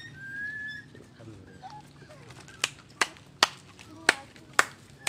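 A puppy whimpers with a thin high whine in the first second, then a run of sharp clicks comes about half a second apart through the second half.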